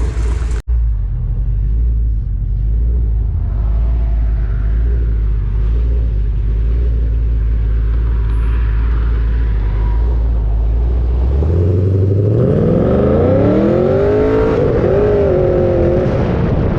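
V8 car engine idling through an aftermarket exhaust with a steady low rumble, then revved once about two-thirds of the way in: the pitch climbs for about three seconds, then drops back with a waver to idle.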